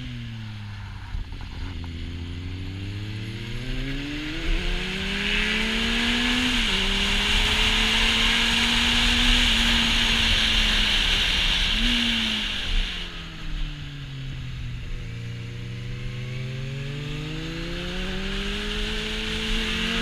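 Kawasaki Z800e inline-four motorcycle engine through an Akrapovic exhaust, heard from on the bike: the revs drop, then climb, fall sharply at an upshift about six and a half seconds in, and hold steady. Near twelve seconds there is a quick rev blip, then the revs fall off and climb again. Wind rushing over the camera is loudest in the middle while the bike is at speed.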